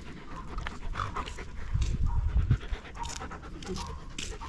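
A dog panting close by, with a cluster of low thuds about two seconds in.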